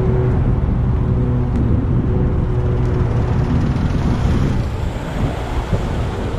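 Mack AMI-335 ASET inline-six diesel engine idling steadily on a roll-off truck, its low engine note becoming less distinct under a noisier hiss in the second half.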